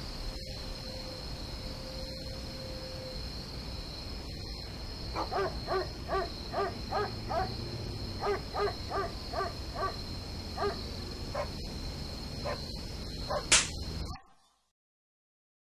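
Crickets chirring steadily, with a run of short pitched calls, about three a second, from about five to twelve seconds in. Everything cuts out abruptly near the end.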